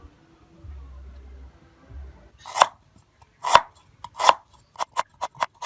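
Knife chopping on a cutting board: three heavy, spaced strokes, then a run of quicker, lighter chops near the end.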